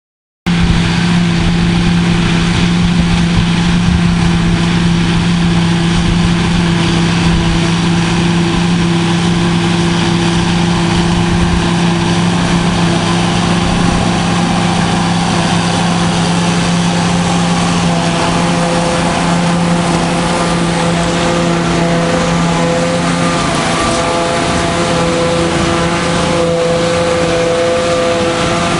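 John Deere diesel farm machinery running steadily under load while harvesting silage. It cuts in abruptly about half a second in, and a second, higher engine note joins about halfway through.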